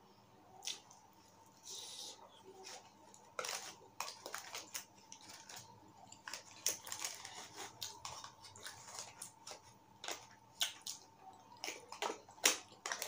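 Close-miked eating sounds: wet chewing and mouth smacks while eating lasagna, with scattered sharp clicks and scrapes of a plastic fork working in an aluminium foil tray.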